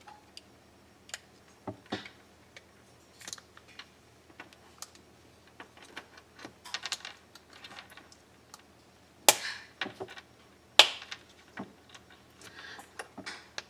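Small plastic clicks and rattles as a Subaru BRZ remote key fob is closed up after a battery change. There are two louder sharp clicks about a second and a half apart, a little past halfway through, as the casing is snapped shut.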